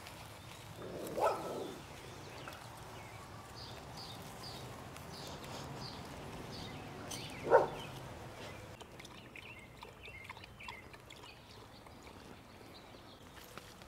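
Quiet garden ambience with scattered bird chirps, broken by two short vocal sounds, one about a second in and a louder one about seven and a half seconds in. Near the end a dog laps water from a plastic watering can, as faint small clicks.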